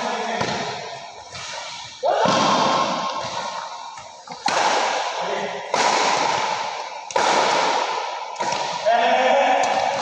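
Badminton rackets hitting a shuttlecock back and forth in a rally: five sharp hits, roughly one every second and a half, each ringing on in a reverberant metal-roofed hall.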